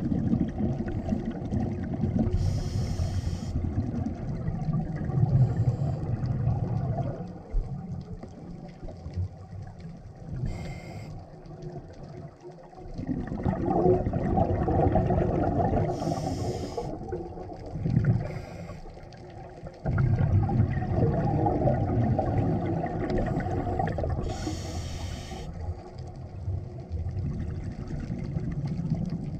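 A scuba diver breathing through a regulator underwater: a few short hissing inhalations, each followed by a long, low bubbling stretch of exhaled air.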